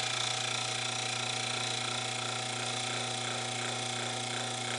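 New-old-stock 1962 Leslie lower-rotor motor running unloaded on the bench, a steady electric hum with a whir over it. It seems to run good.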